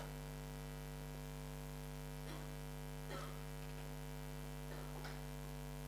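Steady, faint electrical mains hum, with a few soft brief sounds about two, three and five seconds in.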